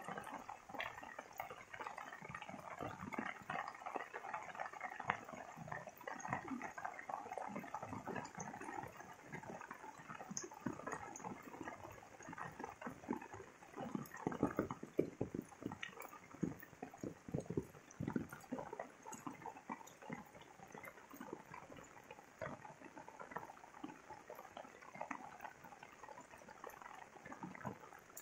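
Steady rain falling on leaves and a wet path, with many irregular close drops hitting near the microphone.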